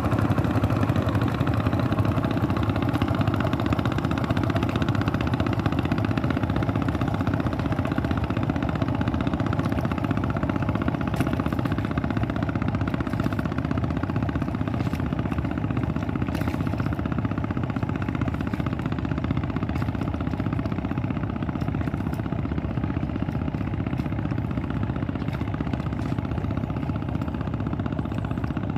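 Boat engine running steadily, slowly getting quieter.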